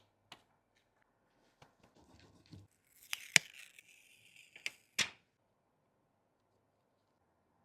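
Tools and phone parts handled on a bench during an iPhone back-glass repair: a few light clicks and taps, then a short scratchy noise about three seconds in with one sharp click, and two more clicks just after; the last two seconds are nearly silent.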